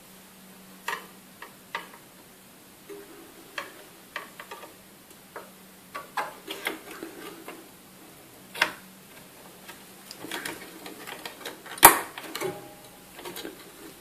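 A RAM memory stick being seated in a desktop motherboard's slot: scattered light plastic clicks and taps as it is lined up and pressed down, then one sharp snap near the end as a slot's retention clip locks it in.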